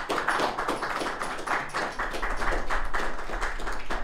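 Audience applauding, a dense patter of many hands clapping at the close of a talk.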